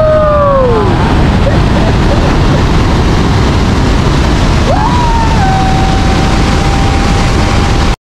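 Loud, steady roar of Victoria Falls' falling water, an unbroken rush with no rhythm.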